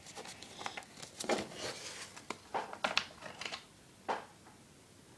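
Pokémon trading cards and a foil booster pack wrapper being handled: irregular crinkling and rustling with small clicks, ending with one sharper crackle about four seconds in.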